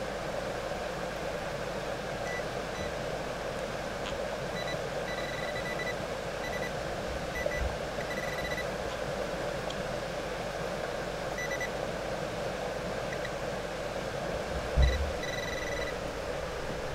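Metal detector giving short, repeated beeps on and off as a buried target is dug out, over the steady rush of a creek. Two dull thumps, the louder about fifteen seconds in.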